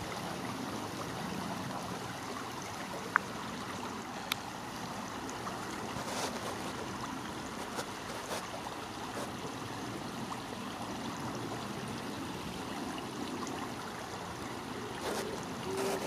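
Shallow river water running steadily over stones, with two brief sharp clicks about three and four seconds in.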